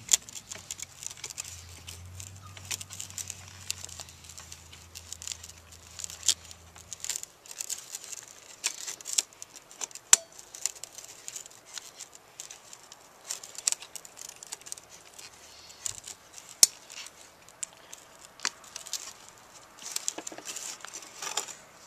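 Scattered small clicks and light rattles of a headlight bulb and its wire spring locking clip being worked into a plastic headlight housing by hand.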